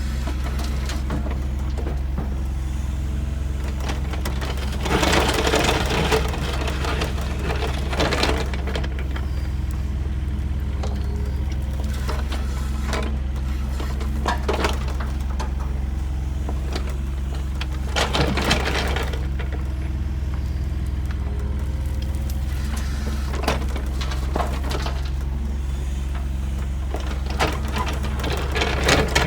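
Heavy construction machine's diesel engine running steadily at a constant pitch, with several short, louder bursts of crunching noise over it.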